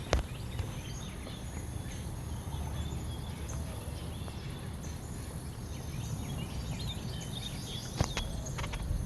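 Wild birds chirping and calling, many short faint calls over a steady low rumble. There are two sharp taps, one just after the start and one about eight seconds in.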